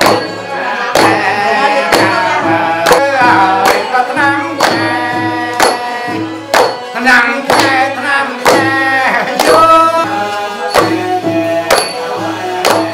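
Traditional Khmer wedding music: a voice singing with gliding, ornamented notes over a sustained melody instrument and a drum struck about twice a second.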